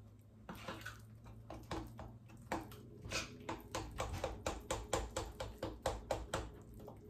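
A utensil stirring thick red velvet cake batter in a glass mixing bowl: a steady run of short scraping, tapping strokes against the glass, about three a second, quickening slightly in the second half.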